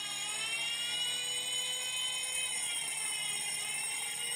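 Fire alarm siren wailing slowly down and up in pitch, sounding together with the fire alarm bell, set off by the solenoid valve opening on a pre-action sprinkler system.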